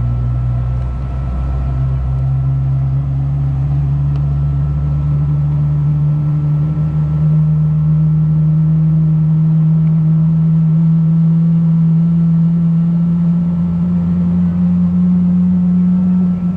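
Boeing 777-300ER's GE90-115B jet engines heard from inside the cabin, a loud steady drone whose low hum slowly rises in pitch as the engines spool up before departure.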